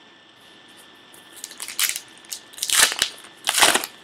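Wrapper of a pack of baseball trading cards crinkling and tearing as it is ripped open, starting about a second in, with two louder rips near the end.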